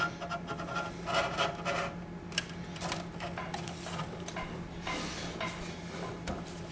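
Stainless steel sign elements sliding and scraping against a metal base plate and a level as they are positioned by hand, with scattered light clicks and knocks, over a steady low hum.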